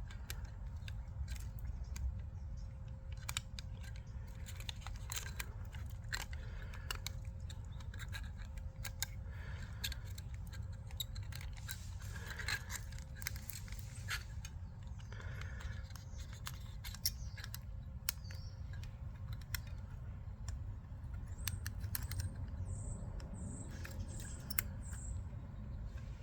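Small scattered clicks, snips and rustles of scissors and fingers working a clear-tape splice on a VHS cassette's magnetic tape, over a low room hum. A few short high squeaks come close together near the end.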